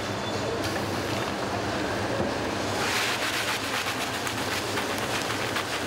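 Steady machinery noise of an automated feed-bagging line, a constant low hum under a rushing hiss, which grows louder for about a second around three seconds in, with light scattered ticks.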